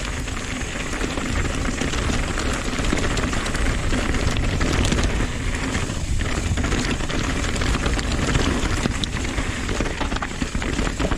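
Downhill mountain bike riding fast down a dirt-and-rock trail: tyres crunching and skittering over gravel and stones, with a constant patter of small clicks and rattles from the bike over the bumps. A steady rush of air on the handlebar-mounted microphone lies under it all.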